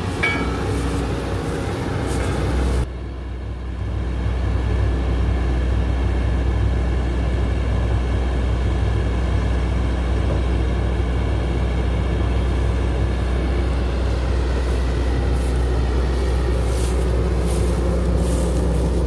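Hydraulic excavator's diesel engine running steadily under load as it lifts a heavy concrete pipe on its hook. The sound drops and changes abruptly about three seconds in, then holds steady again.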